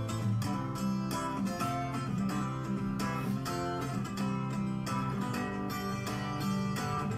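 Background music led by a strummed acoustic guitar, strummed in a steady rhythm.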